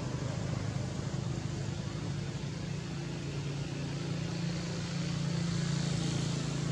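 A steady low motor hum, growing slightly louder about four and a half seconds in.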